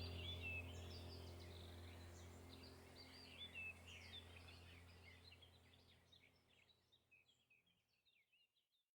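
Background ambient music track: a low steady drone under many quick bird chirps, fading out to silence.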